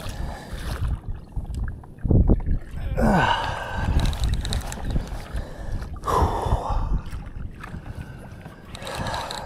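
Water sloshing against a fishing kayak's hull and wind buffeting the microphone, with the angler's hard, effortful breaths as he strains against a heavy fish. The breaths are loudest about three and six seconds in.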